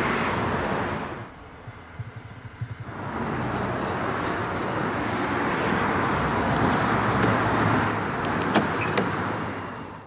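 Lamborghini Huracán LP610-4's 5.2-litre V10 with the optional racing exhaust, running at idle just after start-up. The steady exhaust sound drops away for about two seconds shortly after the start, then comes back and eases off near the end.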